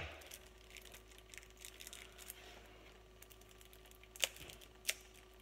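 Faint clicks and light taps of a card deck's packaging being handled while it is worked open, with two sharper clicks near the end.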